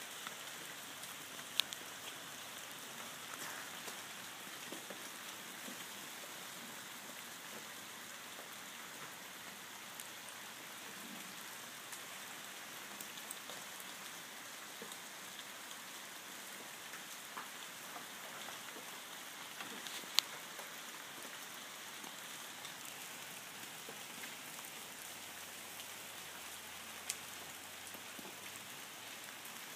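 Steady rain-like patter of drops and bits of ice falling from ice-glazed trees, with three sharp ticks of ice striking, the loudest about twenty seconds in.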